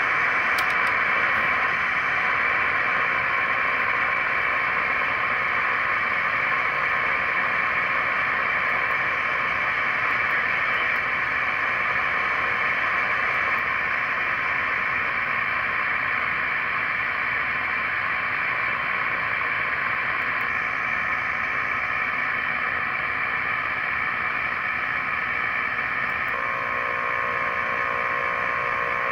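Shortwave static from a software-defined radio receiver in AM mode, tuned around 10 MHz: a steady hiss. Faint steady tones come in near the end.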